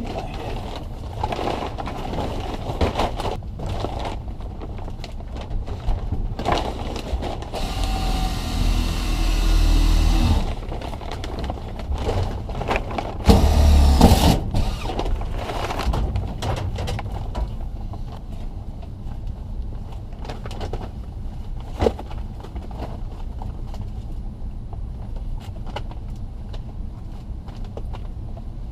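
Cordless drill running for about three seconds, then again briefly, drilling a test hole into a furnace's sheet-metal supply duct for a static pressure reading. Scattered clicks and scuffs of handling are heard over a steady low hum.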